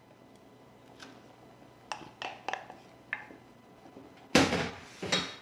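Wooden spoon scraping chopped chicken out of a ceramic bowl into a stainless steel pot of soup: a few light taps and knocks, then a short louder clatter near the end.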